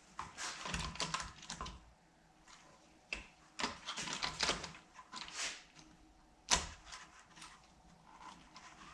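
Hard plastic dashboard trim, a vent and a gauge bezel, clicking and rattling as it is handled and pushed together, with one sharp snap about six and a half seconds in. The vent is not clipping in because the gauge insert is in the way.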